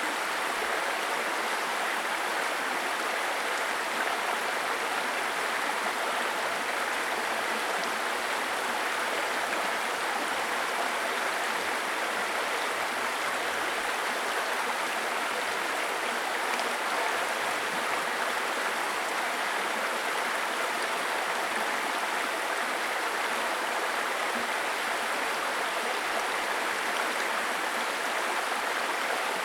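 Small stream babbling over stones: a steady, even rush and gurgle of flowing water.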